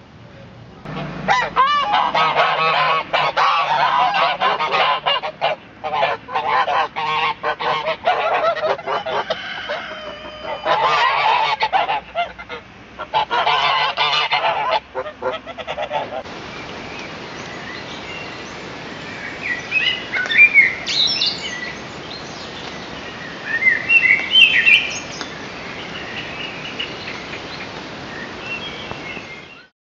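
A flock of domestic geese honking, many calls overlapping, with short breaks, for about the first half. Then a sudden change to a steady rushing hiss with a few bird chirps over it.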